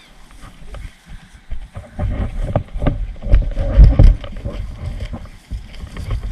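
Irregular low thuds and rustling with rumbling on the microphone, as of a player moving on foot through dense brush; it picks up about one and a half seconds in and is loudest around the middle.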